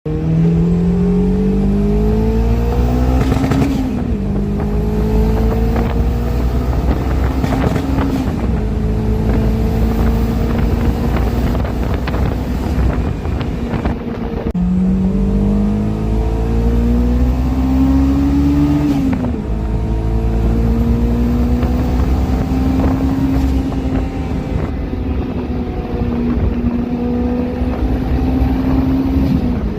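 Turbocharged Honda S2000's four-cylinder engine accelerating hard up through the gears, twice. The pitch climbs in each gear and falls at each upshift, roughly every four seconds, with a high turbo whistle rising alongside and sharp pops at the shifts.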